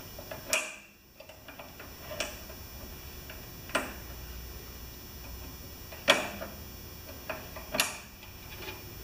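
Small metal parts clicking, about five sharp clicks spaced a second or two apart, as a small cotter pin is worked loose by hand from the discharge chute control linkage of a Craftsman snowblower.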